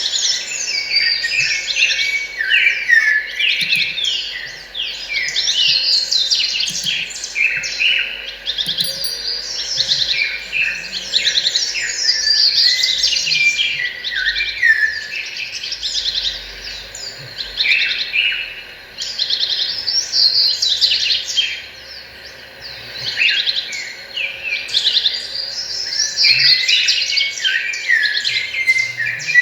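A dense chorus of many small songbirds chirping and twittering, their calls overlapping without pause, with a short lull about three-quarters of the way through.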